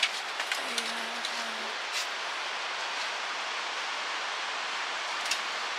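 Steady rushing of a fast, shallow river over rocks, with a few light clicks and a brief faint low call about a second in.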